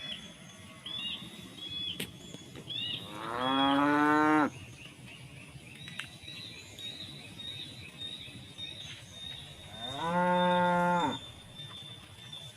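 Cows mooing: two long, loud moos, one about three seconds in and one near the end, each rising in pitch, holding, then falling away.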